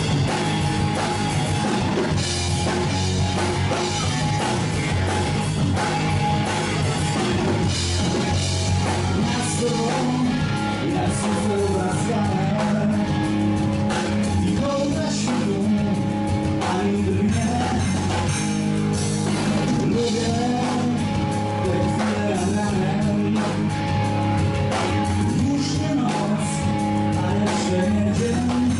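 Blues-rock band playing live: drum kit and electric guitar with singing, a steady driving song throughout.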